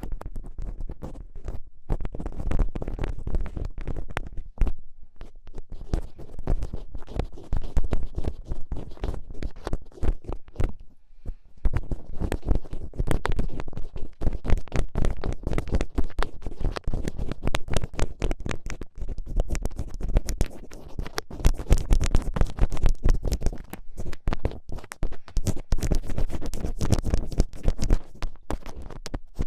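A thin ear pick scraping and scratching inside an ear canal close to the microphone: dense crackly scratches over a low rumble, with a short pause about eleven seconds in.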